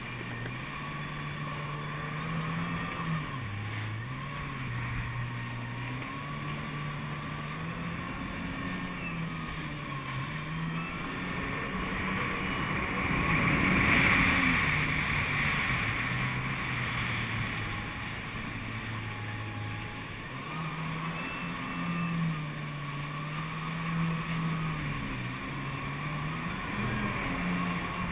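Kawasaki Ultra 300LX jet ski's supercharged four-cylinder engine running under way, its pitch rising and falling as the throttle changes. A rush of water and spray swells to its loudest about halfway through.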